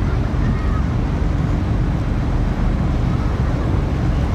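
Steady wind buffeting the microphone aboard a car ferry under way, mixed with the rush of sea water along the hull.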